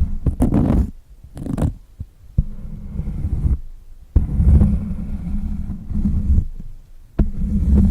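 Close-miked ASMR tapping and scratching on a textured pad or cloth, in uneven stretches of a second or two with sudden starts and soft low thuds under the scratching.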